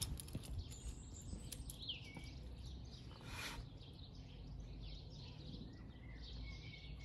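Birds chirping, with a short falling call about two seconds in and a thin whistled note near the end, over a low steady outdoor rumble. A brief rustle about three seconds in, as a duvet is dragged across the bed in the back of the van.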